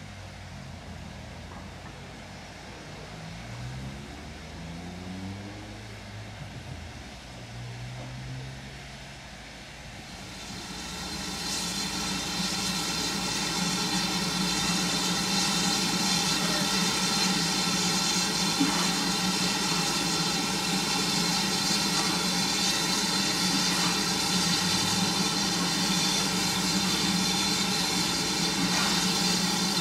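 BR Standard Class 4 2-6-0 steam locomotive running slowly into a station. About ten seconds in, a loud, steady hiss of escaping steam starts and goes on while it stands.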